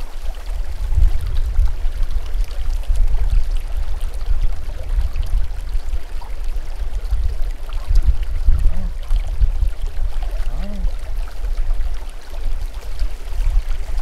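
Wind buffeting the microphone in an uneven low rumble, over the running of a small meadow creek.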